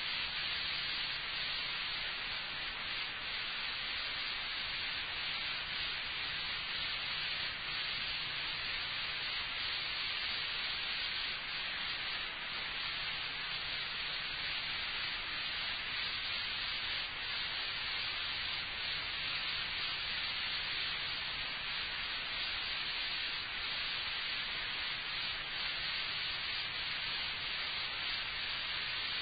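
Steady hiss of an old lecture recording with no speech, with a faint low hum under it.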